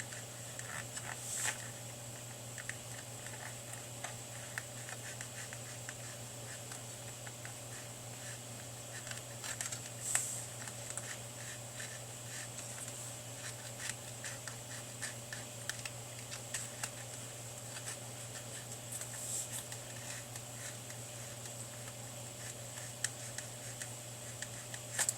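Knife blade cutting the old, cracked foam surround away from a car speaker's paper cone: faint, irregular scratching and small ticks, with a few slightly louder scrapes, over a steady low hum.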